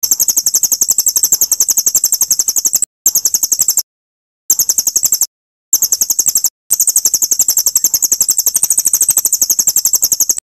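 Recorded songbird trill: very high-pitched, rapid pulses about a dozen a second, delivered in several runs broken by short gaps, cutting off abruptly at the end.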